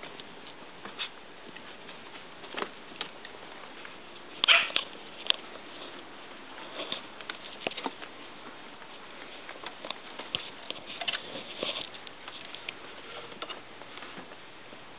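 Three-week-old Icelandic sheepdog puppies play-wrestling on a blanket: irregular light scuffles, pats and taps of small paws and bodies, with a louder burst about four and a half seconds in.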